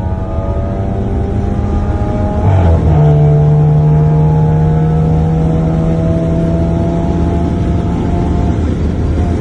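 Tuned Volkswagen Golf TSI with a sport exhaust accelerating. The engine note climbs slowly, drops at a gear change about two and a half seconds in, then climbs again, louder, in the next gear.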